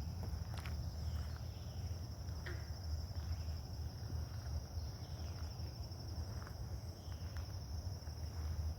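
Insects trilling in a steady high drone, over a low rumble, with a few faint clicks scattered through.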